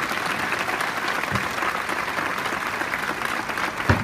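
Large audience applauding steadily. Two short low thumps cut through it, one about a second in and a louder one near the end.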